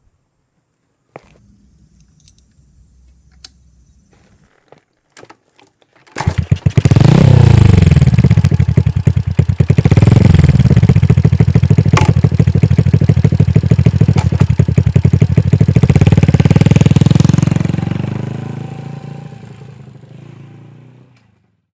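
Honda Chaly's single-cylinder four-stroke engine: a few light clicks and knocks, then the engine starts about six seconds in. It revs up and down a couple of times, runs on, and then fades away near the end.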